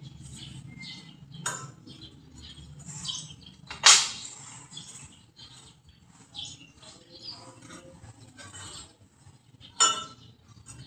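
Metal clanking from hands-on fabrication work: three sharp clangs, the loudest about four seconds in, with lighter knocks and scrapes of metal parts and tools between them.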